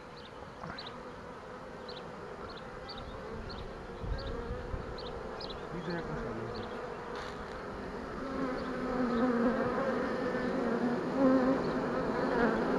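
Honey bees of a freshly hived swarm buzzing at the hive entrance, the hum growing louder about two-thirds of the way through as the bees crowd close. Short high chirps sound now and then in the first half.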